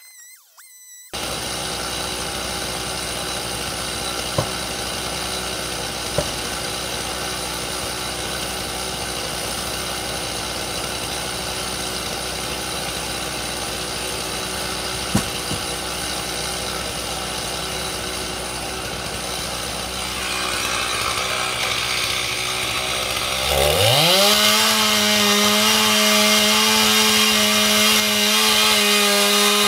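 Stihl two-stroke chainsaw running steadily at low speed with a few light clicks, then throttled sharply up to full speed about 23 seconds in and held there while cutting through a log, its pitch starting to drop right at the end.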